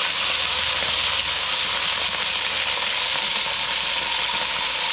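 Rabbit pieces sizzling and frying in hot oil in a Dutch oven on high heat, a steady crackling sizzle as the meat browns.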